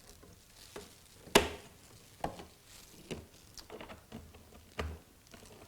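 Plastic knocks and clicks of a vacuum cleaner hose being fitted into the back of a Hoover Dustmanager upright and twisted to lock, with a few handling knocks. The sharpest knock comes about a second and a half in.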